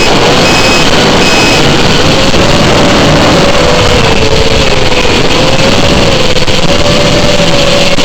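FPV quadcopter's motors and propellers running under heavy noise, their whine wavering up and down in pitch with the throttle. A high electronic beep repeats a few times at the start and stops about a second and a half in.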